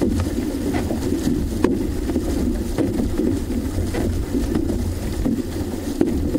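Water rushing along the hull of a six-person outrigger canoe under hard paddling, heard as a steady rough rumble with wind on the microphone. Faint splashes of paddle blades entering the water come every half second or so.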